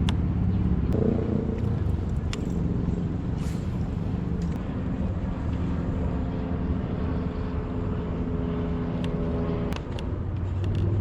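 Motor vehicle engine running with a steady low rumble and a pitched drone; the drone stops abruptly near the end.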